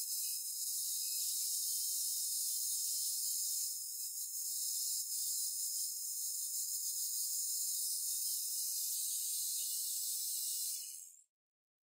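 Steady high-pitched hiss of compressed air blasting from a nozzle, cutting off abruptly about a second before the end.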